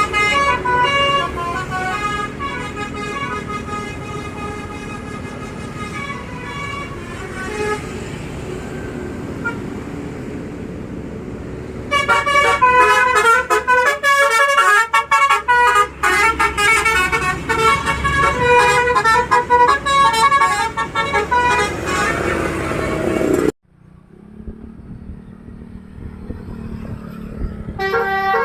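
Bus musical air horns (telolet Basuri horns) playing fast multi-note tunes, loudest in a long stretch through the middle. They are interrupted by a quieter spell of engine and traffic noise. Near the end the horns cut off suddenly, then start again just before the close.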